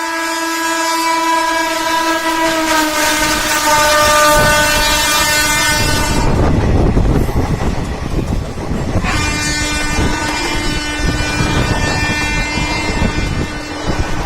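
The twin-tone air horn of a WAP1 electric locomotive sounds long, its pitch dropping slightly about three seconds in, and stops about six seconds in. The passing express train's rumble and wheel clatter follow. The horn sounds again at about nine seconds and holds for about five seconds.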